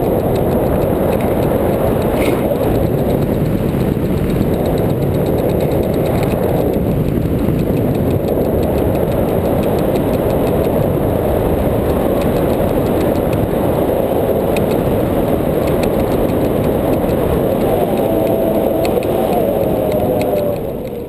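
Loud, steady wind noise from the airflow of a tandem paraglider flight buffeting the action camera's microphone. It drops off suddenly near the end.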